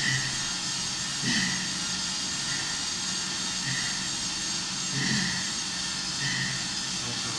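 Rear-wheel bicycle trainer humming steadily as its roller and resistance unit spin under hard pedaling. The hum swells in a regular pulse about every second and a quarter.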